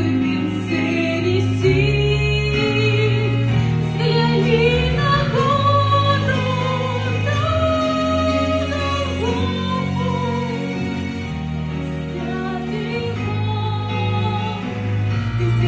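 A woman singing a slow Christian song over an instrumental backing track, with long held notes that glide gently in pitch.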